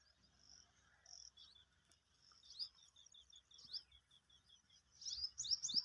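A flock of rosy starlings chirping and chattering faintly, with many quick high chirps and a short run of rapid repeated notes midway. The chatter grows busier and louder near the end.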